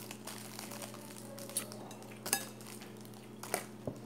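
Dishes and cutlery clinking and clattering on a meal table, with clear plastic wrap being handled. There are five or six sharp clatters, spaced irregularly, over a steady low hum.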